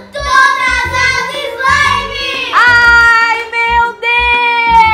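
Children singing a pop-style song over a backing track with a steady beat; about halfway through the voices hold one long note that sinks slightly.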